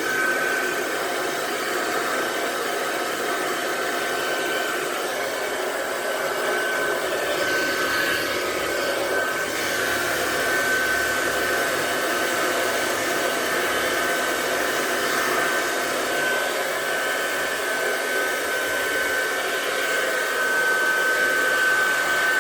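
Handheld hair dryer running steadily, blowing air for a volume blow-dry, with a steady high whine over the rush of air.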